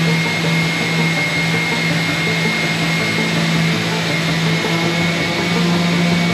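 An electric power tool's motor running steadily, a hum with a thin high whine over a rushing noise.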